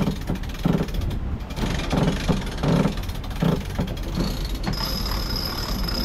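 Wind buffeting the microphone with water rushing along a sailing yacht's hull as it sails hard in strong wind, a steady low rumble with uneven surges. About five seconds in, a steady high electronic beep starts and holds.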